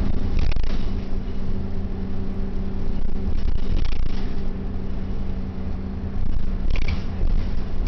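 Inside a 1996 Orion V transit bus on the move: the engine's steady drone over a low road rumble, with a few brief clatters from the cabin.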